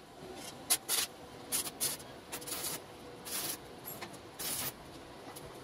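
Welder tacking a steel-tube frame: a series of short bursts of hiss, each under half a second, with brief gaps between them.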